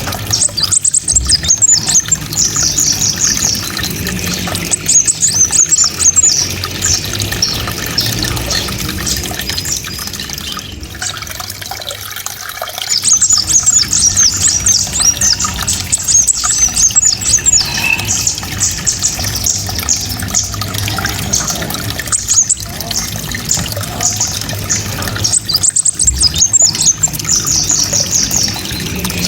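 Small songbird singing rapid, high, chattering 'tembakan' bursts in phrases of a few seconds, several times over with short pauses between, as used for training songbirds to copy.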